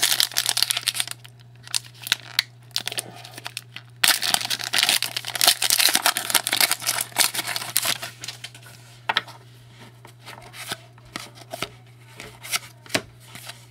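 Trading-card pack wrapper being crinkled and torn open, with cards handled and flipped through by hand, in bursts of rustling and clicks with quieter gaps between, over a low steady hum.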